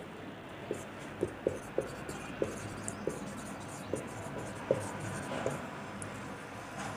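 Marker pen writing on a whiteboard: a faint scratching with short squeaks at irregular intervals as the strokes are drawn.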